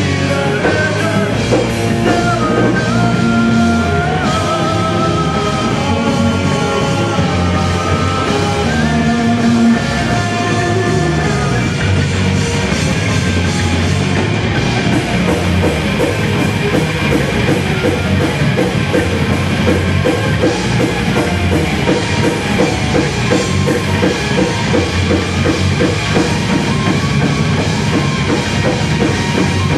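Celtic metal band playing live with distorted guitars and a drum kit. A melodic lead line moves in held notes for the first ten seconds or so, then gives way to a faster, driving rhythm.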